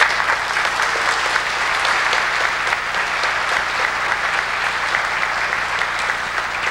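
A large congregation applauding, a dense, steady clatter of many hands clapping.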